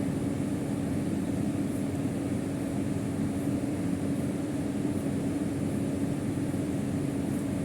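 Steady background hum with one held low tone, unchanging throughout.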